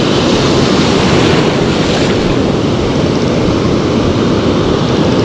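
Ocean surf washing and breaking around the wader, with wind buffeting the microphone.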